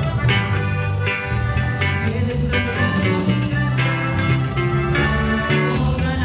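Live norteño band music led by a button accordion, over a steady bass line and drums.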